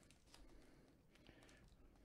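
Near silence, with faint scattered ticks and crinkles of fingers picking at clear plastic wrap around a card toploader.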